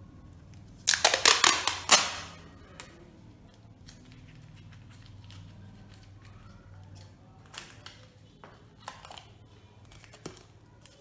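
Wide clear adhesive tape pulled off its roll in one loud, rapid crackle lasting about a second, starting about a second in. Faint taps and rustles of cardboard being handled follow.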